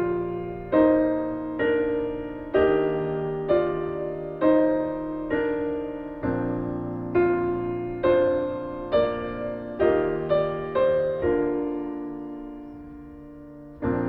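Background piano music: gentle notes and chords struck about once a second, each fading away, with a longer fade near the end before the next phrase begins.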